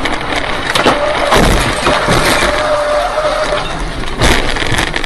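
Car crash recorded by a dashcam inside a vehicle on a wet highway: loud road noise with several crashing impacts, about a second in, at a second and a half, and again past four seconds. A steady tone holds for about two seconds between the impacts.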